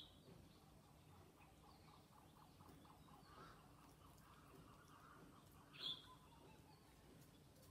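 Near silence: faint background with one short, sharp, high chirp about six seconds in.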